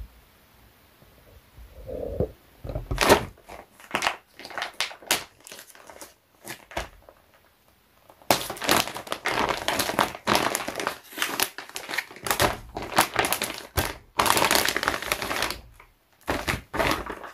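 Clear plastic packaging bag crinkling and rustling as it is handled and pulled off a stack of folded bath towels. There are scattered crackles at first, then continuous crinkling for most of the second half.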